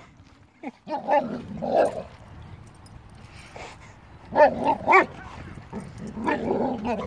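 Bernese mountain dog giving short excited barks and whines at a flopping fish, in a few bursts: about a second in, again midway, and near the end.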